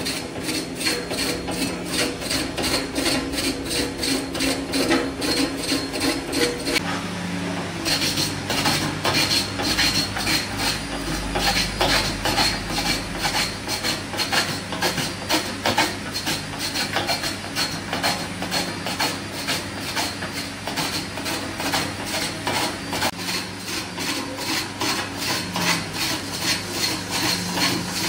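A long-handled lathe tool cutting into a large log spinning on a wood lathe: a steady rasping scrape of the tool on the wood, with a fast, even knocking several times a second. A low steady hum joins underneath about seven seconds in.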